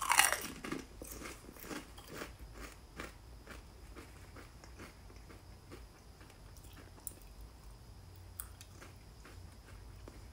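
A Lay's Limón potato chip bitten with a loud crunch, then chewed, the crunching thinning out over the first few seconds into faint mouth clicks.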